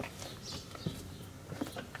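A few faint, separate clicks and knocks from a Murray mower's engine-stop safety cable linkage, its bracket and return spring, as the cable is worked to test the newly fitted cable.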